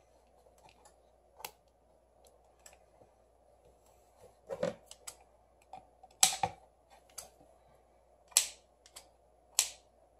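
Irregular sharp clicks and taps of tweezers and fingertips working double-sided adhesive tape onto a phone's metal mid-frame, with a few louder snaps in the second half.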